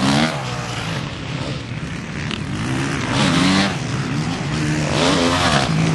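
Motocross bike engines revving hard on the track, pitch climbing and dropping with each shift and jump, swelling loudest about three seconds in and again near the end.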